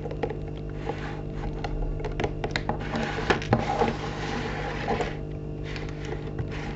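Plastic Lego bricks and minifigures being handled, with scattered clicks and taps. Through the middle few seconds a scraping rush runs as the Lego baseplate build slides and turns on a wooden table, over a steady low hum.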